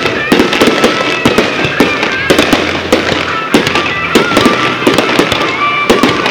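Fireworks display with red crackling stars bursting: a dense, rapid crackle of sharp pops that keeps up without a break.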